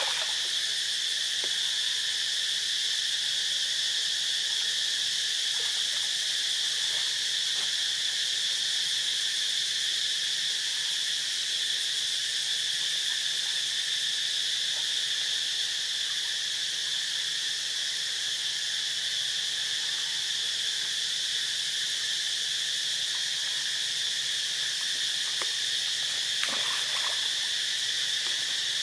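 A steady, high-pitched chorus of insects droning without a break. A couple of faint, short sharp sounds come near the end.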